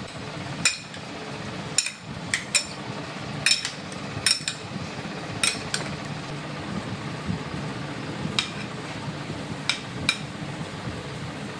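Steel spoons clinking against a ceramic bowl while fruit salad is stirred and tossed: about a dozen sharp, ringing clinks, irregularly spaced, over a steady low hum.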